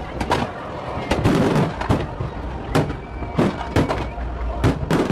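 Fireworks display going off: a quick, irregular string of about a dozen sharp bangs over a steady rumbling haze.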